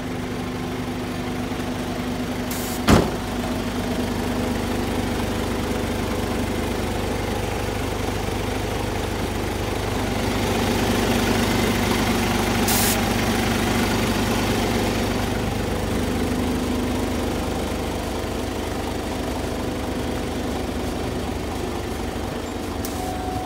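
Isuzu Giga heavy truck's diesel engine idling steadily, getting louder for a few seconds in the middle. A single sharp knock sounds about three seconds in.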